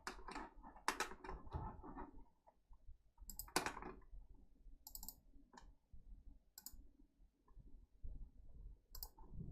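Faint typing on a computer keyboard, a quick run of keystrokes in the first two seconds, followed by a handful of separate sharp clicks, as from a mouse.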